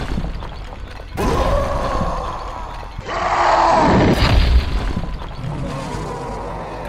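Cartoon fight sound effects over action music: heavy impact booms and crashing debris, with two loud drawn-out swells starting about one and three seconds in, the second sliding down in pitch.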